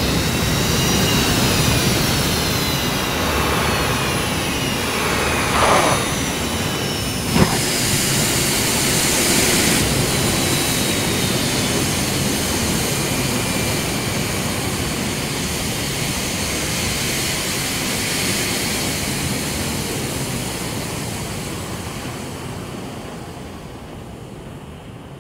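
Jet aircraft engine running loud, with whines falling in pitch over the first few seconds and a sharp crack about seven seconds in. It fades away over the last few seconds as the jet flies off.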